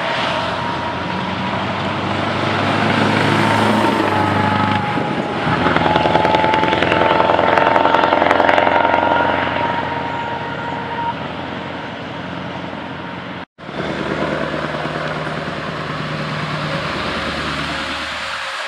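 Scania 4-series truck diesel engines passing close by. A blue tractor unit pulls past under power, loudest about six to nine seconds in, with a thin whine over the engine. After an abrupt cut a little past halfway, another Scania's engine runs steadily as it rounds a roundabout.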